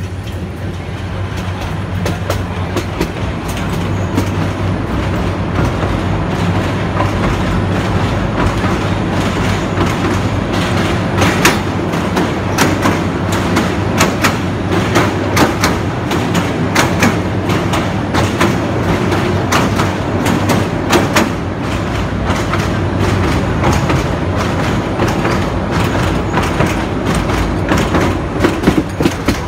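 Passenger train running at speed, heard from inside a coach: a steady rumble with a low hum. From about eleven seconds in come the sharp clickety-clack of the wheels over the rail joints, which return near the end.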